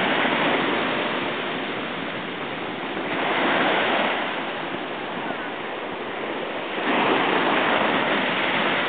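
Ocean surf breaking and washing up onto a sandy beach, a steady rush that swells louder about three seconds in and again near seven seconds as waves come in.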